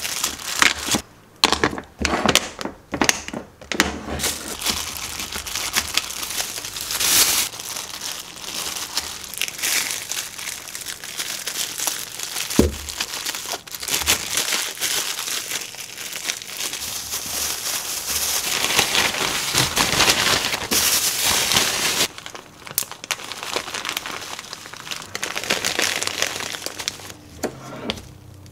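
Thin plastic crinkling and rustling as a disposable plastic glove and a plastic bag are handled while dried figs are packed, with some sharper clicks in the first few seconds.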